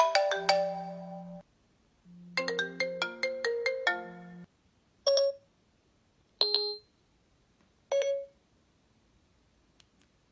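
iPhone ringtone previews: the Marimba tune finishes about a second and a half in, and a second, different tune plays from about two to four and a half seconds, each over the phone's vibration motor buzzing in pulses. Then three short Siri chimes sound about a second and a half apart.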